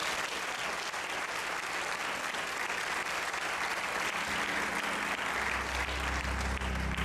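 A congregation applauding steadily. From a little past five seconds in, low sustained notes come in underneath the clapping.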